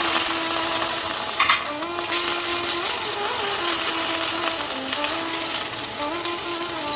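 Fresh coriander and mint leaves sizzling in hot oil with onions and green chillies in a cast-iron wok, stirred with a spatula. A steady loud sizzle, with a brief knock of the spatula on the pan about a second and a half in.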